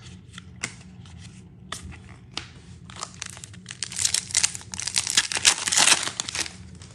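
Trading cards being handled in the hands: sliding, flicking and crinkling as a stack of baseball cards is shuffled through, a scattering of light ticks at first, then a busier, louder run of crackling in the second half.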